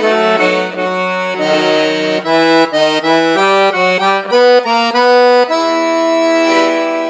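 Accordion playing a guarânia melody over held bass notes. A run of quicker notes in the middle settles into a sustained chord near the end.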